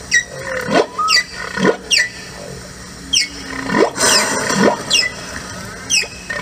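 A series of short squealing animal calls, each a quick upward sweep in pitch, about one a second, over a steady low hum.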